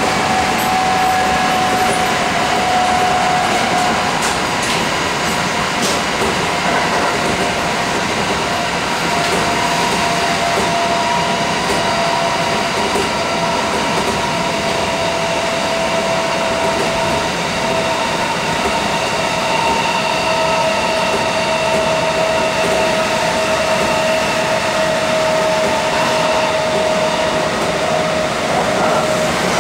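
Running sound inside a Kintetsu 1230 series two-car electric train (Hitachi GTO-VVVF drive) at speed: a steady rumble of the car on the rails with a high whine that slowly falls in pitch.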